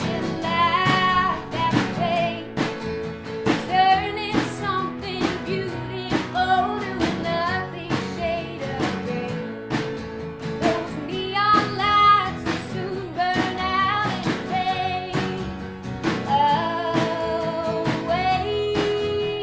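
Country-pop song: a voice singing a melody with vibrato over strummed acoustic guitar and a steady beat.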